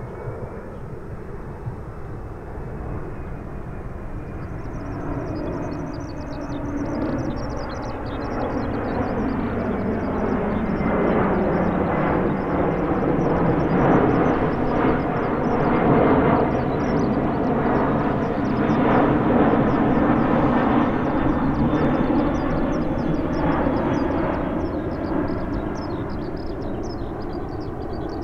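Airbus A340-300 airliner's four CFM56 turbofan engines passing overhead. A jet rumble grows louder, peaks about halfway through as the aircraft is directly above, and fades as it moves away. A faint engine whine is heard near the start.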